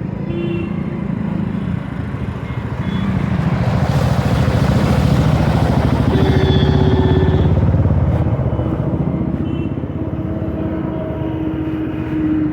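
Road traffic and wind noise heard from a moving electric scooter. It swells about four seconds in and eases off after about eight seconds.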